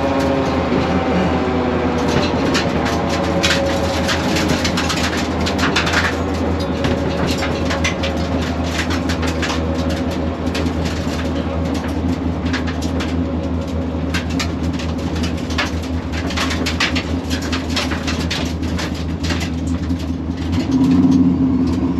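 Pontiac Firebird's supercharged engine running at a low, steady idle, heard from inside the cabin as the car rolls slowly. Many sharp clicks run over the engine sound, and the engine note rises briefly near the end.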